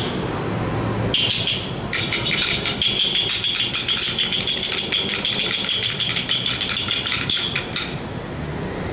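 Rapid rattling: a dense run of small clicks with a steady ringing edge. It starts about a second in and stops near the end.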